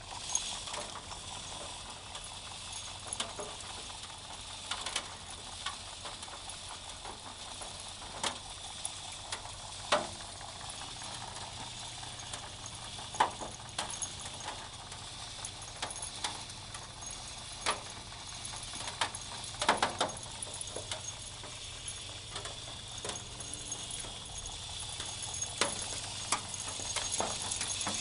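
Rotary trommel soil sifter running: a wire-mesh drum turns on rubber drive wheels, with a steady motor hum and soil and small stones pattering and rattling against the mesh. Scattered sharp clicks and knocks come at irregular times as clods and stones drop and tumble.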